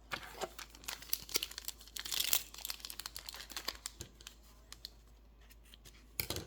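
A hockey card pack's wrapper crinkling and tearing as it is opened by hand, with irregular crackles that are densest about two seconds in. This is followed by a quieter stretch and a short knock near the end.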